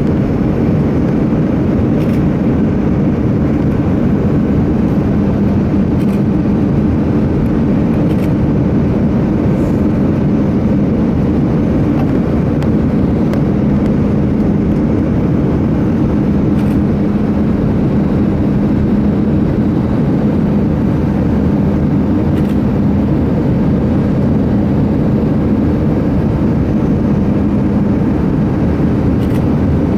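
Steady cabin drone of an Airbus A319 in flight: engine and airflow noise heard from inside the passenger cabin, with a low steady hum and no change in level.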